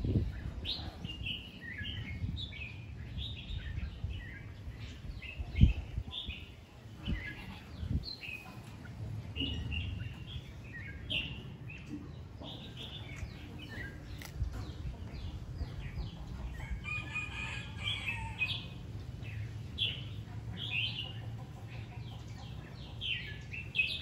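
Small birds chirping in quick, short calls over and over, above a steady low rumble, with a dull thump about six seconds in.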